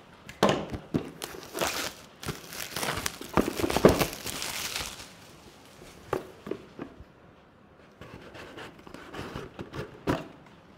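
A small cardboard box being opened by hand. For the first few seconds a blade scrapes through its seal and the cardboard rustles. Then come quieter handling and a few knocks as the lid is worked off.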